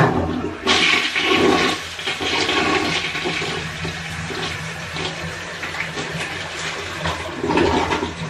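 Toilet flushing: a sudden start, then a loud rush of water that slowly eases, swelling once more near the end.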